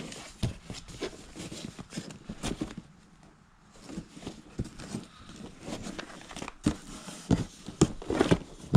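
Rummaging through piled belongings: rustling and crinkling with irregular knocks and bumps as things are shifted, with a short lull partway through and busier, louder knocks in the second half.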